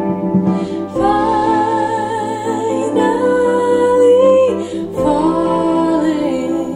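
A song played through Polk Audio R100 bookshelf speakers: a woman sings long, wavering held notes over plucked guitar.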